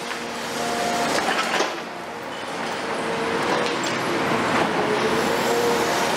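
CAT 336F long-front demolition excavator working a hydraulic crusher into a concrete floor slab: concrete crunching and rubble falling, with scattered cracks over the machine running and a faint steady whine that comes and goes.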